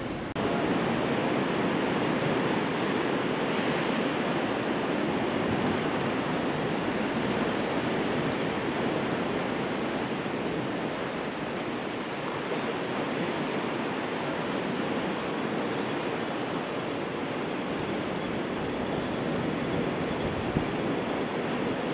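Sea surf washing against a rocky shore: a steady rush of water that steps up in level about half a second in.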